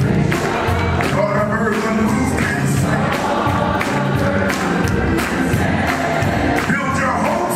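Gospel music: a choir singing over instrumental backing with held bass notes and a steady beat.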